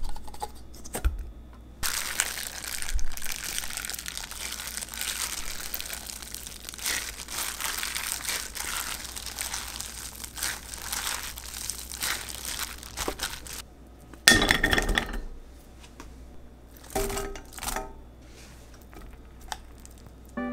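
Plastic crinkling steadily for about ten seconds as canned Spam is mashed by hand in a glass bowl, followed by one short louder clatter and a few small knocks.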